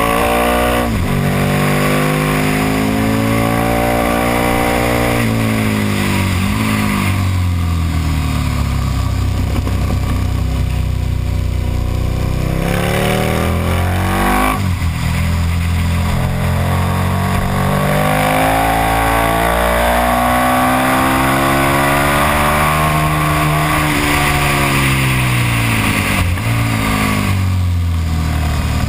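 KTM Super Duke's V-twin engine at full race pace on track, its pitch climbing under acceleration and falling away into the corners several times over, with sudden breaks in the pitch a few times. Wind rush on the low-mounted camera runs under the engine.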